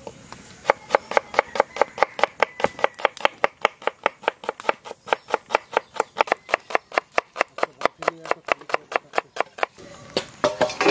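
Knife slicing red onions on a wooden chopping board: a fast, even run of sharp chops, about five a second, that stops about a second before the end.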